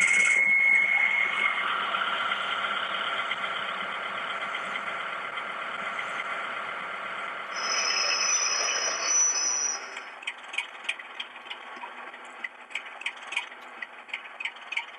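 Hornby HM7000 decoder's Class 73 electro-diesel sound file playing through the model locomotive's small speaker. A diesel engine runs steadily, with a high whistle-like squeal at about eight seconds in. About ten seconds in, the engine sound stops and a quieter run of irregular clicks follows.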